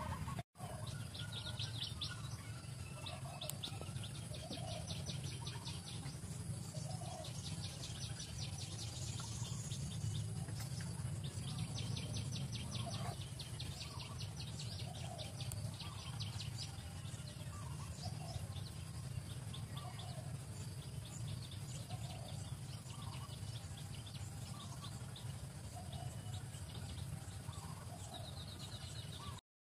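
Outdoor bird ambience: short chirps every second or two and repeated bursts of fast, high trilling over a steady low rumble.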